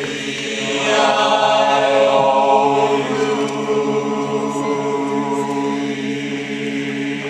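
Bass and tenor sections of a choir singing one long held chord together, unaccompanied, swelling about a second in and easing slightly near the end.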